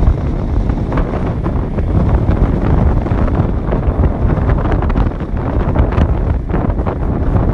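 Wind buffeting the microphone: a loud, steady rumble with uneven gusty flutter.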